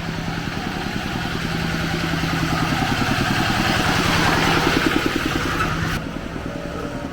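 A small motorcycle-type engine running with a fast, even beat, growing louder to about four seconds in and then fading.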